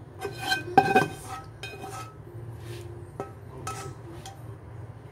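A spatula scraping and knocking against a wok as saucy stew is pushed out into a glass bowl. There is a ringing clatter of clinks about a second in, then a few scattered knocks and scrapes, over a steady low hum.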